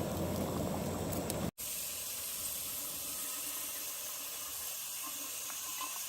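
Steady hiss of breakfast cooking on a camp stove, with turkey bacon and coffee on the go. A louder stretch with a low hum breaks off abruptly about a second and a half in, and an even hiss follows.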